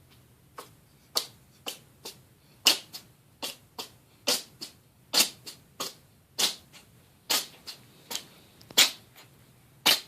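A small pet sneezing over and over: about twenty short, sharp sneezes, roughly two a second and unevenly spaced, some much louder than others.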